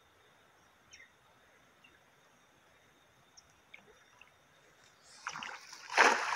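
A cast net thrown onto a pond: a rustle of the throw about five seconds in, then a loud splash as the weighted net lands on the water near the end. Before that, only a few faint bird chirps.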